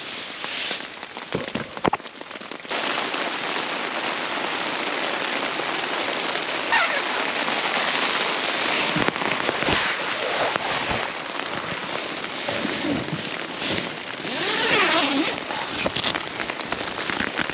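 Steady rain with drops pattering and crackling on a surface, getting heavier about three seconds in.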